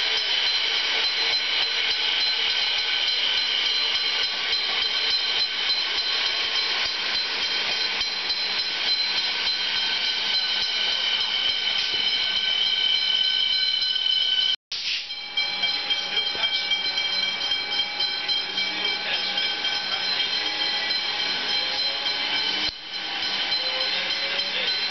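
Melbourne suburban electric trains running past close by: wheel and rail noise under a steady high-pitched whine from the traction equipment. The sound cuts abruptly about fifteen seconds in to a second train, whose lower motor tones rise in pitch as it picks up speed.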